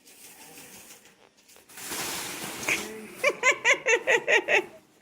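A person laughing: a run of about eight quick, rhythmic laughs in the second half, after a breathy rush of noise.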